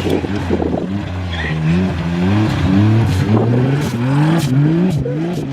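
Motor vehicle engine revving up and down over and over, its pitch climbing then falling back about once or twice a second after a steadier drone at the start.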